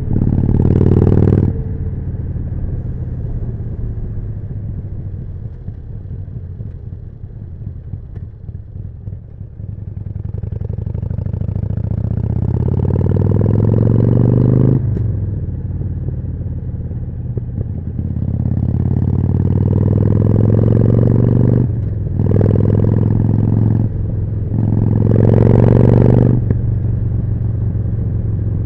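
Harley-Davidson Forty-Eight's air-cooled V-twin running through a Jekill & Hyde exhaust while riding. It eases off through the first third, then pulls up through the gears, with quick shifts about halfway and a little past two-thirds. Brief loud rushes of noise come near the start and near the end.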